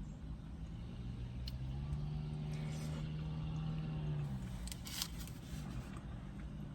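A passing motor vehicle's engine drone swells in, holds steady, then drops in pitch and fades after a few seconds. A few faint clicks sound alongside it.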